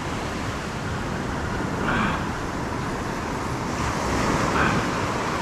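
Ocean surf breaking and washing up the sand close by: a steady rushing wash of water.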